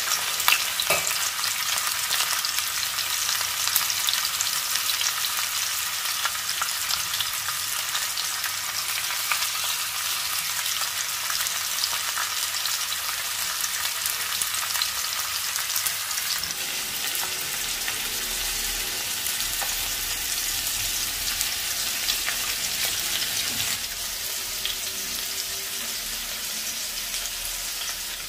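Masala-coated sardines shallow-frying in hot oil on a dosa griddle: a steady sizzle with fine spitting crackles, easing a little near the end.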